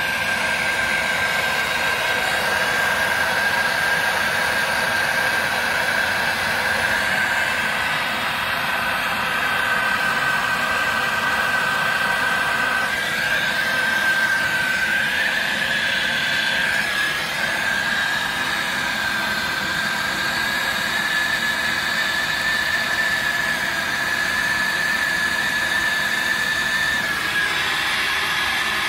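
Handheld gas torch burning with a steady hiss and a high whistle running under it as it heats copper pipe joints for soldering.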